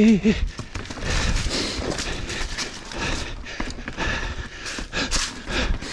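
Full-suspension mountain bike rolling down a rocky trail: tyres crunching over rock slabs and dirt, with frequent sharp knocks and rattles from the bike as it hits the bumps.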